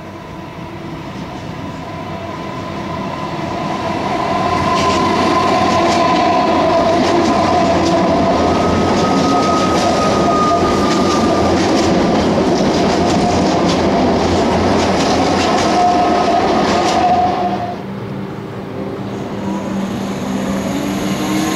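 Melbourne Metro electric suburban train passing overhead on a concrete viaduct: wheels clattering over the rail joints, with steady whining tones. It builds over the first few seconds and drops away sharply a few seconds before the end.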